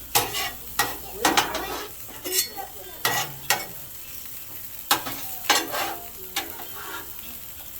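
Onions and serrano peppers sizzling on a Blackstone griddle while a metal spatula scrapes and taps against the flat-top, making about a dozen sharp, short strokes over the steady hiss.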